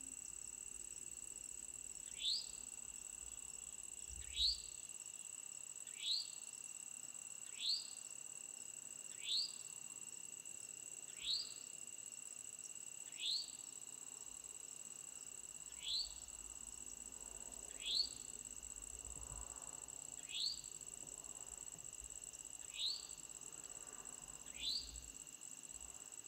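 Evening insect chorus holding two steady high-pitched tones. Over it comes a short upward-sliding chirp, repeated about every two seconds, which is the loudest sound.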